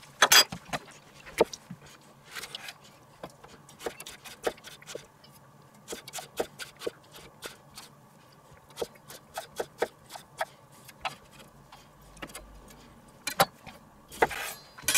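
Chef's knife slicing a red chili pepper on a wooden cutting board: a run of short, sharp knocks of the blade on the board at an uneven pace of a few a second, with a louder knock right at the start.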